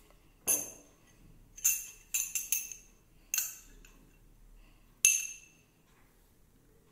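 Steel spoon clinking against a small glass bowl while scooping out chopped green chilies: about seven sharp, ringing taps at uneven intervals, with a quick cluster of three a little past two seconds in.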